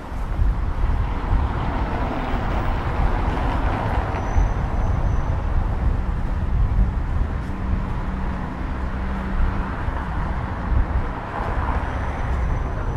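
Steady traffic noise with a heavy low rumble; a low engine hum stands out for several seconds in the middle.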